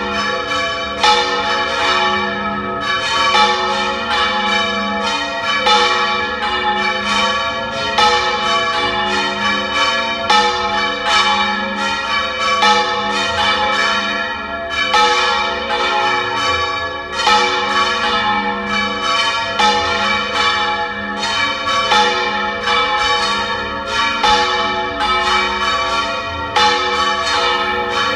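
Three church bells of 182, 319 and 512 kg swung full circle in Valencian volteig, ringing together with frequent overlapping strikes over long ringing tones. The 512 kg bell, cast in 1910, strikes with a new clapper.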